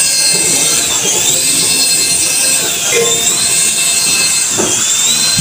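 Small toy helicopter's electric rotor motors whirring steadily as it hovers. A high whine dips and rises slowly every second or two. The battery is running low.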